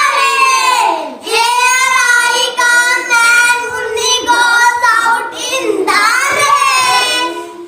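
A child singing in a high voice, phrase by phrase, with short breaks between the sung lines.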